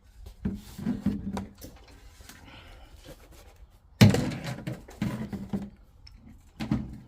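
Handling noises: knocks and clunks as the plastic body of a cordless leaf blower is moved about, with one loud thunk about four seconds in.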